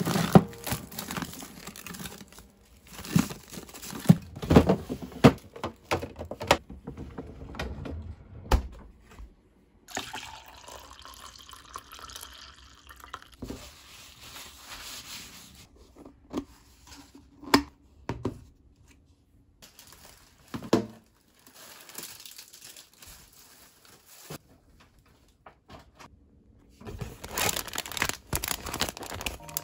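Frozen zip-top freezer bags and plastic packaging rustling, crinkling and knocking as they are handled, with a few seconds of liquid pouring in the middle. Near the end, dense crinkling of plastic packaging being unpacked from a shopping bag.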